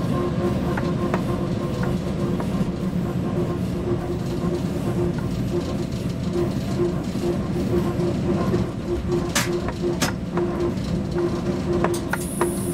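Cab interior of a ČD class 340 electric locomotive running at speed: a steady rumble with a pulsing hum, and a few sharp clicks about nine and ten seconds in and again near the end.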